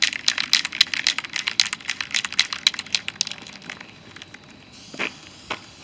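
Aerosol spray paint can being shaken hard, its mixing ball rattling rapidly inside the metal can, which mixes the paint before spraying. The rattling stops about three seconds in, and two brief sounds follow near the end.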